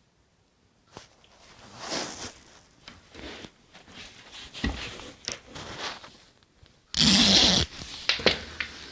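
Irregular scuffing, scraping and clicking as a cat bats at a wind-up toy hamster, with one loud, harsh scrape lasting under a second about seven seconds in.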